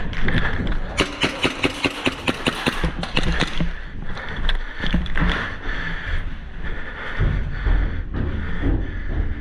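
Airsoft guns firing a rapid run of shots, about four a second for two to three seconds, followed by scattered knocks and shuffling movement noise.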